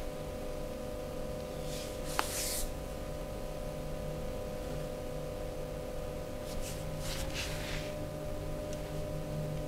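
Hands rubbing and stroking skin during a massage: two short brushing strokes, about two seconds in and again around seven seconds in, with a faint tick just after the first, over a steady hum.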